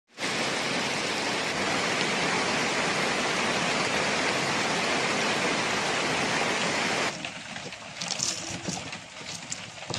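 Heavy rain falling steadily, a dense hiss that cuts off suddenly about seven seconds in. After it, quieter scattered taps and scrapes of a pestle crushing chillies and shallot in a wooden mortar.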